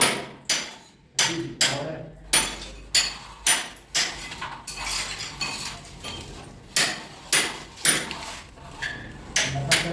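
Hammer tapping: an uneven series of sharp knocks, about one or two a second, with a clinking edge.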